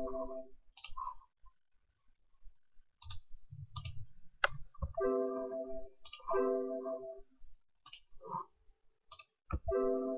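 Computer mouse clicks, with short pitched Windows alert chimes as Microsoft Access warning and delete-confirmation dialog boxes pop up. There is one chime at the start, two a little past halfway and one near the end, with single clicks in between.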